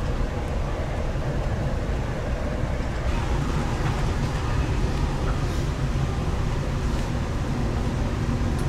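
Steady low rumble and running noise of an Amtrak Acela train travelling at speed, heard inside the passenger car.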